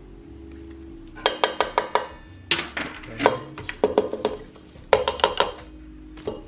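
Measuring spoon and cup clinking and tapping against a stainless steel stand-mixer bowl. There is a quick run of clicks a little over a second in, then scattered taps and knocks.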